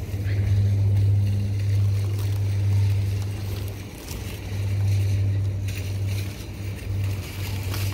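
Wind buffeting the microphone: a low rumble that swells and fades in gusts. Grocery bags are being loaded into a car trunk, with a couple of short knocks from the loading in the second half.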